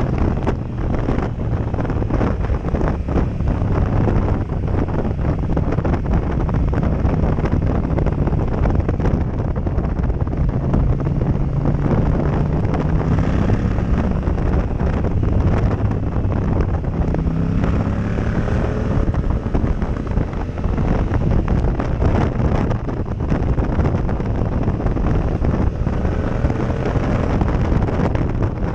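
Heavy wind rushing over a helmet-mounted action-camera microphone at riding speed, over the Yamaha MT-07 Tracer's parallel-twin engine, whose pitch rises and falls with the throttle through the bends.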